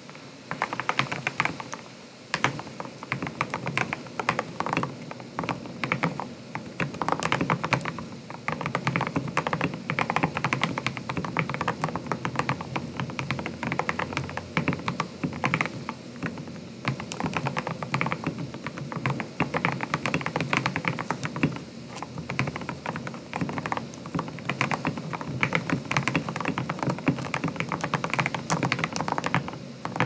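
Continuous fast typing on an RK71 mechanical keyboard fitted with overlubed JWICK black linear switches with O-rings on a POM plate: a dense stream of keystrokes that begins about half a second in, with a brief pause about two seconds in.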